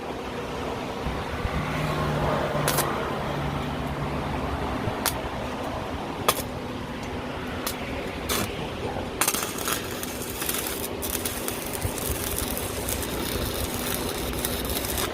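A steady mechanical hum with a low rumble, broken by scattered sharp metallic clicks and clinks that come thickest about two-thirds of the way through.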